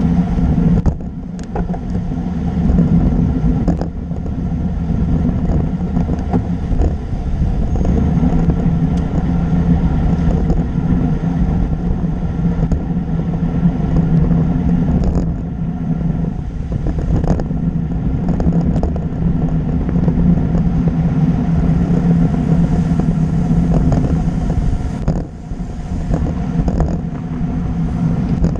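Wind rushing over a bike-mounted camera's microphone and tyre noise on asphalt as a road bike rides at speed, with a steady low hum underneath and a few brief dips in level.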